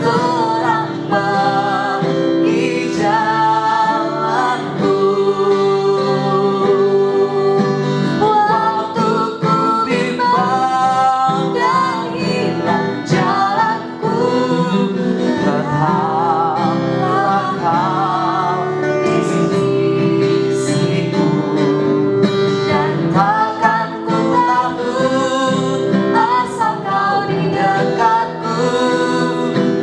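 A praise song sung with guitar accompaniment.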